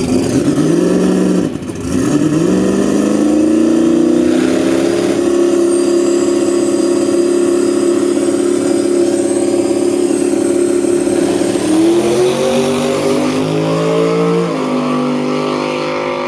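Turbocharged S10 drag truck's engine revved on the line, briefly dropping and coming back up, then held at a steady high rpm for several seconds. About twelve seconds in it launches, the pitch climbing, dropping once at a gear change and climbing again as it runs down the track.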